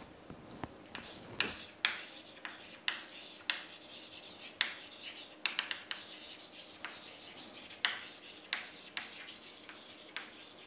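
Chalk writing on a blackboard: short taps and scratches at irregular intervals, about one or two a second, as letters are formed.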